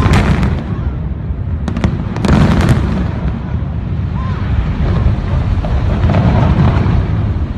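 Explosive demolition charges bringing down concrete cooling towers: a sharp blast at the start, then a few more around two seconds in and a dense cluster of cracks just after, over a steady low rumble as the towers collapse.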